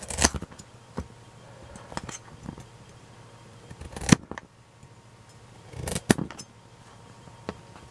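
Kitchen knife slicing a raw carrot into thick rounds on a thin plastic cutting sheet: separate sharp knocks as the blade cuts through and hits the sheet, a second or two apart, the loudest about four seconds in.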